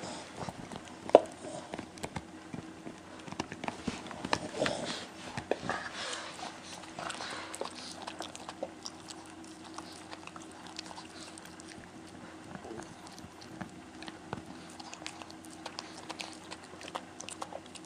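Boston terrier gnawing on a hard chew treat: irregular crunching and clicking of teeth, with one sharp loud click about a second in. The gnawing is busier in the first half and lighter later.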